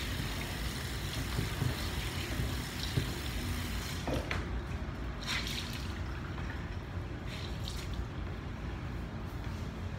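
Water running at a sink and splashing, over a steady low rumble. The hiss of the water thins about four seconds in, with a few light knocks.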